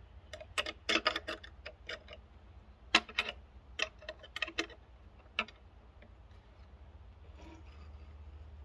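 Flat stamped steel wrench clicking and clinking against a bolt head as it is turned and reset, while the bolt through the Dobsonian telescope base is tightened. It makes a quick, irregular run of sharp metal clicks that stops a little past halfway.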